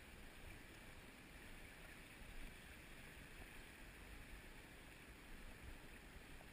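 Faint, steady rush of the River Medway in flood, the swollen water running under a stone bridge.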